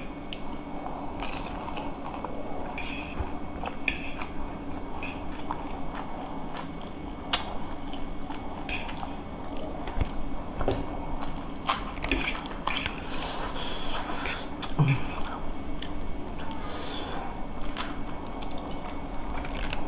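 People biting and chewing food, with scattered sharp clicks throughout.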